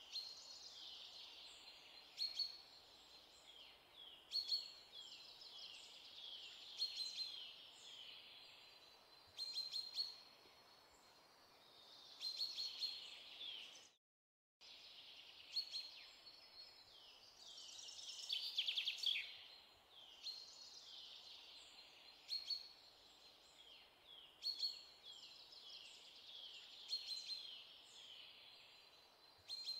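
Birds chirping: repeated short, high, falling calls and trills over a faint steady hiss, broken by a brief dropout to silence about halfway through.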